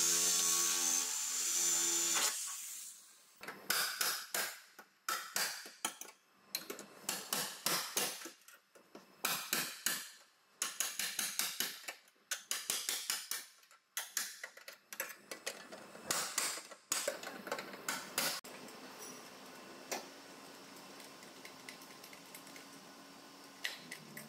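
A hand-held power tool works the sheet-metal front structure of a crash-damaged car. It runs steadily for about two seconds, then goes on in a string of short rattling bursts. In the last few seconds only a low steady hum remains.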